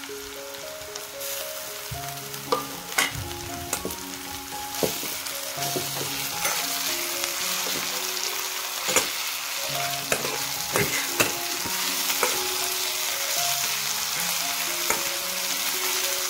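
Chopped onions and garlic sizzling in hot oil in a metal kadhai. The sizzle swells about a second in as the garlic goes in. A long metal spatula scrapes and knocks against the pan as the mixture is stirred.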